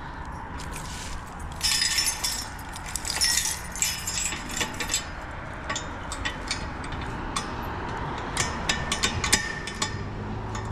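Metal clinking and rattling as a gate's padlock and hardware are fastened: two spells of rattling in the first half, then a run of sharp clicks near the end.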